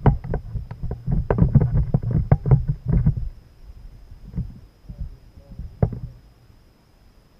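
A dense clatter of irregular knocks and bumps on a plastic kayak hull as the rod and reel are handled, then a few single knocks near the middle before it goes quiet.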